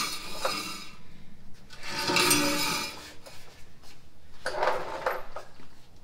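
Removed metal exhaust pipe and muffler sections clanking and scraping on a concrete floor, in three bursts: at the start, about two seconds in (the loudest, with a brief metallic ring), and again about five seconds in.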